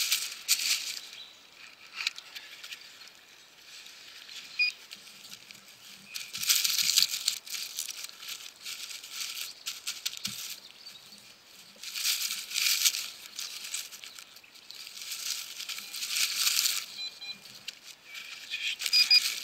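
Digging with a serrated hand shovel in forest soil and dry leaf litter: scraping and crunching of dirt and rustling leaves, in several bursts with quieter pauses between.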